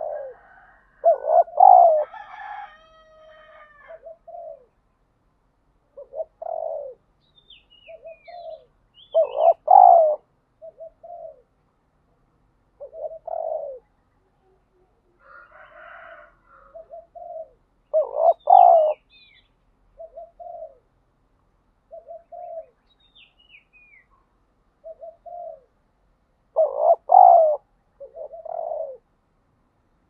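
Spotted dove cooing: a loud multi-note coo phrase about every eight or nine seconds, with shorter single coos between. A small bird chirps faintly at times in the background.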